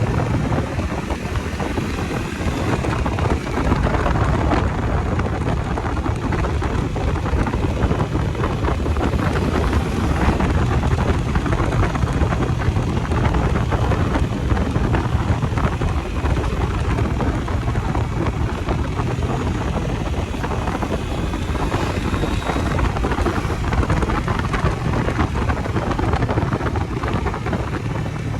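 Bajaj Dominar 250's single-cylinder engine running steadily under way, heavily mixed with wind rush over the microphone.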